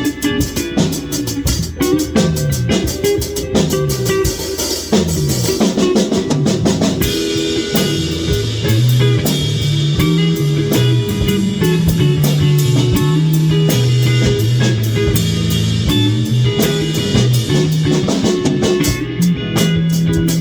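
Live rock band jamming: drum kit, electric guitar, bass and synth playing together. In the first third, pitched runs slide downward; after that, the low end settles into long held notes under steady drumming.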